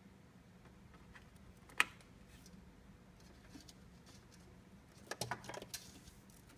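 Small handling clicks from hands working on power-supply connector wiring: one sharp click about two seconds in, then a short flurry of clicks and rustling near the end, over a faint low hum.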